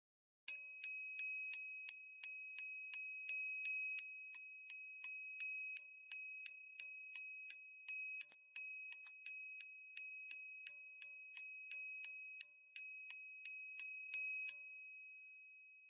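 Small brass bell rung continuously by hand, its clapper striking about three times a second. Each strike renews two clear ringing tones, one high and one higher. The strikes stop near the end and the bell rings out.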